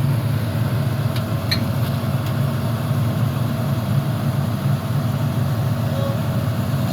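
Heavy diesel engine running at a steady speed, with a few faint clicks a little after a second in.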